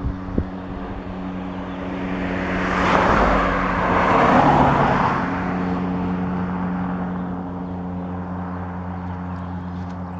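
Level crossing warning bell ringing steadily while the barriers are down. A road vehicle passes in the middle, its noise swelling and fading over a few seconds.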